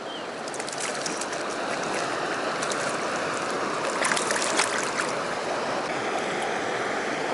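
Steady rush of creek water flowing, with a few short splashes about four seconds in as a small hooked trout is drawn thrashing to the surface.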